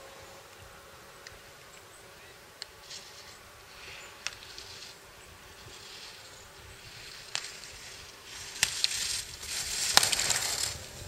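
Giant slalom racer's skis carving on snow: a hiss of edges scraping that swells with each turn and grows louder as the skier nears, loudest near the end. A few sharp clicks are heard along the way.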